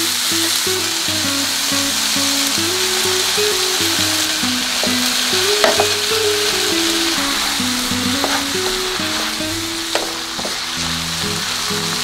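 Diced vegetables and bacon sizzling in a frying pan as they are stirred with a wooden spatula, with a few sharp scrapes of the spatula on the pan. Slow instrumental music plays underneath.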